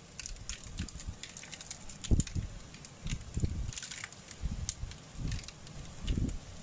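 Hailstones striking hard surfaces as many scattered, irregular sharp clicks, with intermittent low thumps and rumbles, the loudest about two seconds in.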